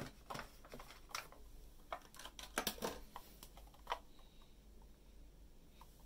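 Clear plastic blister pack and chopstick case handled by hand: a run of crackles and clicks over the first four seconds, then only faint handling.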